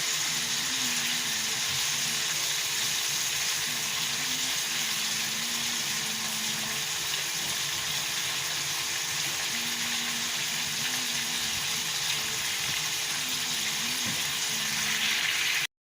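Pieces of chicken breast searing in hot olive oil with thyme over high heat: a steady sizzle, broken by a brief dropout at the very end.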